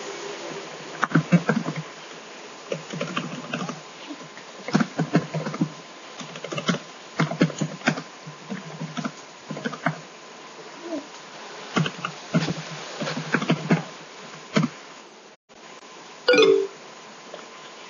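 Irregular clicks and taps coming in short clusters, with a brief louder sound about sixteen seconds in, heard over video-call audio.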